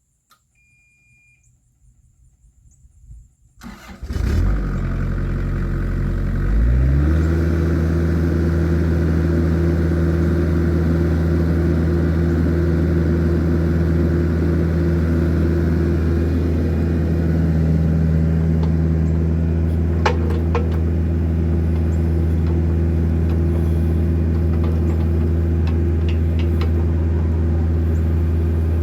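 Mini excavator's diesel engine starting about four seconds in, its pitch stepping up a couple of seconds later, then running steadily. A few brief clicks about twenty seconds in.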